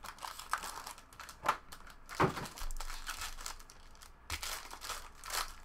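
Plastic wrapping on a trading-card box crinkling and rustling as it is handled and pulled open, with a few louder crackles.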